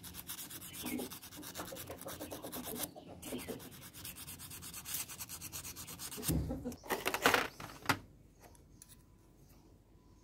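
Hand sanding a small steel spring from a rusty wire cutter with a scrap of sandpaper: fast back-and-forth rubbing strokes. There is a short break about three seconds in and louder scrapes around six to seven seconds, then the rubbing stops.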